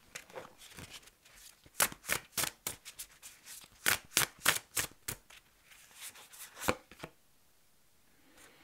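A tarot deck being shuffled by hand: an irregular run of crisp card slaps and taps, which stops about seven seconds in.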